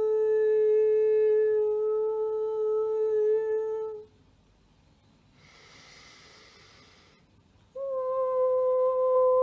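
A woman's voice holding a long, steady mantra note, an unbroken tone rich in overtones. It stops about four seconds in. A breath follows, then a new, slightly higher note begins near the end.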